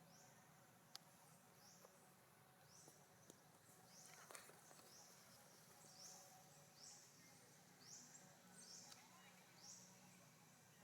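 Faint outdoor ambience with a small animal's high, rising chirp repeated steadily a little more than once a second, and a few soft clicks.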